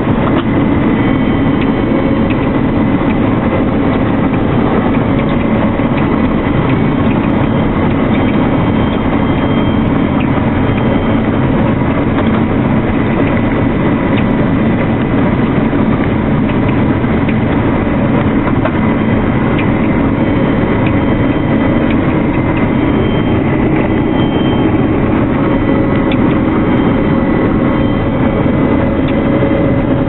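CLAAS Lexion 520 combine harvester running under load while cutting winter barley, heard from the cab: a steady, loud mechanical din from the engine, threshing and header drives, with a thin, steady high whine over it.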